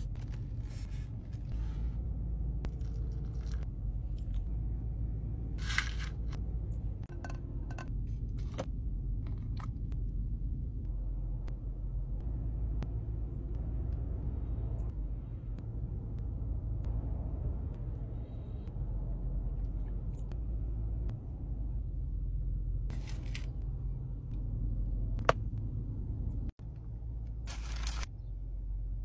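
Steady low rumble of a car interior, under scattered clicks, taps and scrapes of cups, a spoon and food containers being handled. Near the end a paper burger wrapper rustles as it is pulled open.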